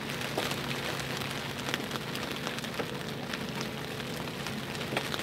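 Heavy rain beating on a sailing yacht's windows and deck in a storm, a dense hiss full of small drop ticks, with a faint low steady hum underneath.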